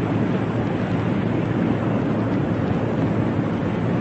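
Steady shipboard ambience on a warship's open bridge at sea: a constant rush of wind and water over a low engine rumble.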